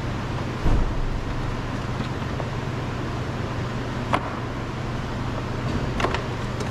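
Sharp plastic clicks as the wiring connectors are unplugged from a car's door trim panel, with a dull thump about a second in, over a steady low hum.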